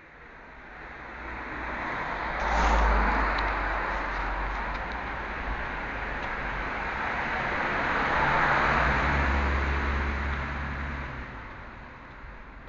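Cars passing by on a road, their tyre and engine noise swelling and fading. One car is loudest about three seconds in, and a second swells up and passes around nine seconds in.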